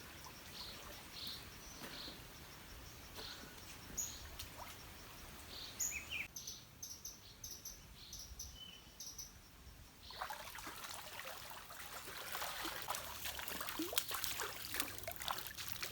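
Faint outdoor sound with short, high bird chirps repeating through the first part. From about ten seconds in, water splashing and trickling gets steadily louder.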